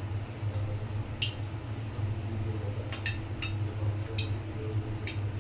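Several light, sharp clinks of bangles as hands lift and shape cut rounds of dough on a plate, over a steady low hum.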